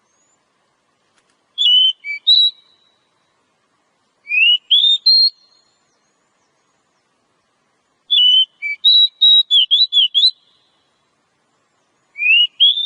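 Oriental magpie-robin (kacer) singing in short phrases of clear whistled notes and rising sweeps, separated by pauses. The third phrase is a longer, rapid run of notes.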